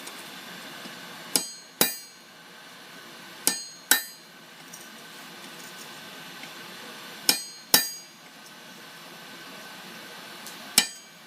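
Hand hammer striking steel in short pairs of blows, seven in all, each with a bright metallic ring: a small chisel being driven to cut a touch mark into a tool-steel flint striker.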